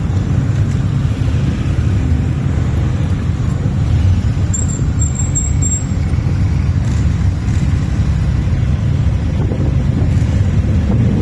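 Engines of a column of motorcycles riding slowly past one after another, blending into a steady low rumble.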